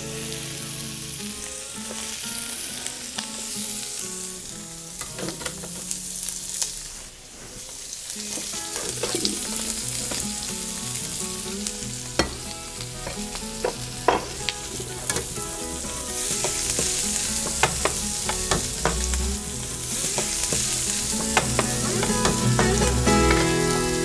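Cubes of pork fatback sizzling as they fry in a pan, with the sharp clicks of a knife cutting through sausage onto a wooden cutting board from about five seconds in.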